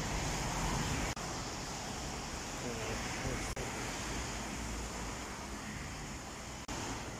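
Steady street traffic: cars passing on a wet road, with tyre hiss. The sound cuts out for an instant three times.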